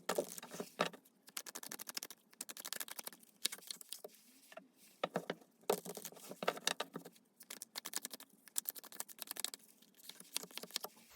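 Tarot cards being shuffled and handled: runs of rapid light clicks and flicks of card edges, in several bursts with short pauses between.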